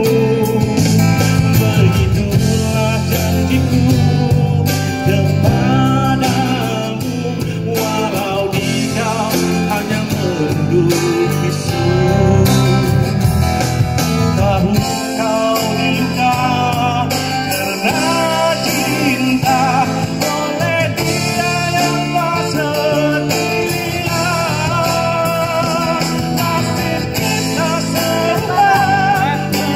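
Music: a man sings a Malay ballad into a microphone, accompanied by an acoustic guitar.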